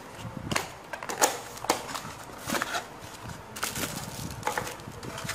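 Irregular crinkles and clicks of packaging and a small plastic adapter being handled and unwrapped by hand, about half a dozen sharp clicks scattered through.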